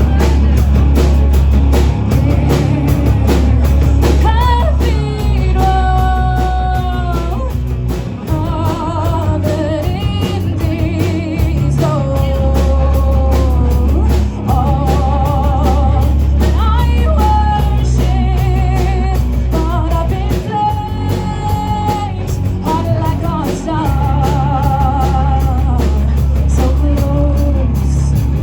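Live rock band playing: a heavy bass and drum kit with electric guitar, and a sung vocal line coming in about four seconds in.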